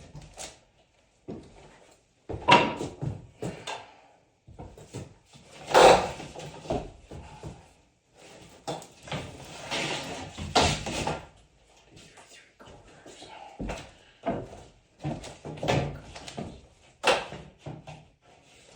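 Irregular wooden knocks, bumps and scrapes as boards are handled and set into place, with a few loud thuds.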